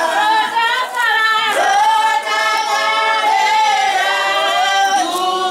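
A group of voices singing together unaccompanied, women's voices prominent, in long held notes.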